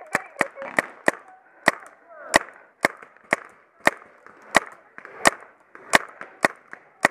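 Paintball marker firing a string of single shots, about two a second at an uneven pace, each a sharp crack.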